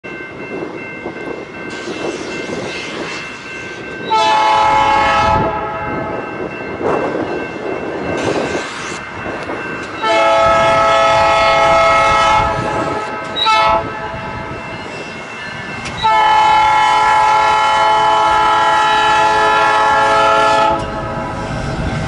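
Freight locomotive's air horn sounding the grade-crossing signal as the train approaches: long, long, short, long, with the last blast the longest. Between the blasts the approaching GE diesel locomotives rumble, and steady high tones of the crossing bell ring underneath.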